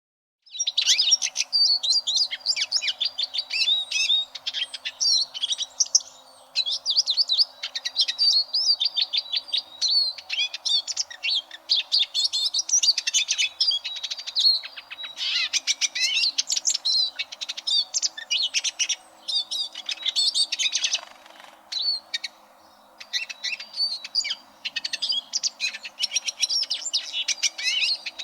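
Eurasian siskin singing a fast, rambling twittering song, with sudden starts and stops. It begins about half a second in out of silence, and runs on in long phrases broken by short pauses and one longer gap past the middle.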